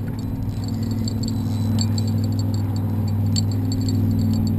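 Steady low motorboat engine hum carrying across the water, with light irregular clicking from a fishing reel as a hooked striped bass is played.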